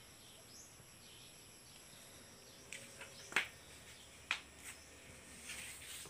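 A few faint, scattered clicks and knocks, from a phone camera being handled and carried across a room, over quiet room tone with a faint steady high-pitched hum.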